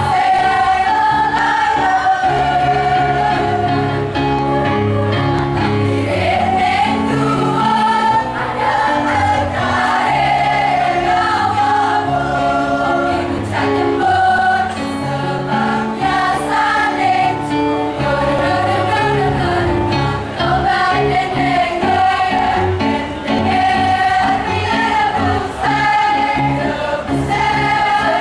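A choir singing a slow song in parts, with held notes, over a bass accompaniment.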